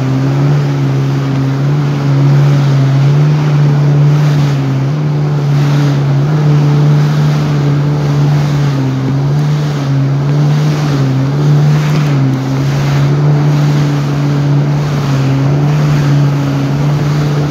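Jet ski engine running at a steady cruising speed, its pitch wavering slightly up and down, with the hiss of water spray thrown up by the wake.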